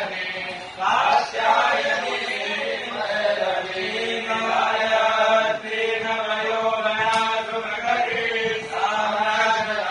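A group of Brahmin priests chanting a stuti (hymn of praise) to the goddess Chandika together, in a steady recitation tone. The chanting runs in long phrases with brief pauses for breath.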